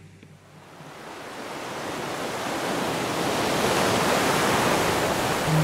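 Steady rushing noise of breaking seas and wind around a sailboat under way in rough water, swelling up over the first few seconds and then holding loud.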